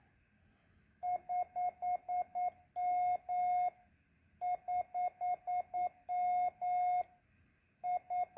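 Icom 706MK2G's Morse code (CW) sidetone beeping as a paddle is keyed at about 10 words a minute. Twice, a run of six quick dits is followed by a long dah, and short dits start again near the end. It is one steady mid-pitched beep, switched cleanly on and off.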